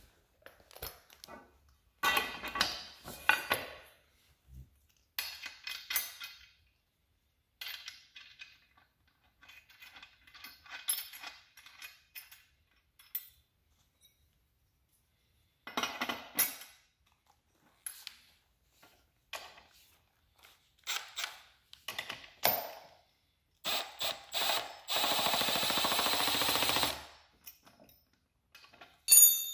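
Repeated clinks and clanks of steel parts, washers and nuts being handled as a wheel is fitted onto its axle. Near the end a Milwaukee cordless impact driver runs for about two seconds, tightening the nut on the axle end.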